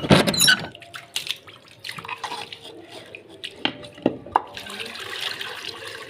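A loud burst of splashing at the start, then several sharp clicks and knocks of a metal sliding door bolt being worked. In the last second or so, water is poured from a steel bucket into a clay water dish, splashing steadily.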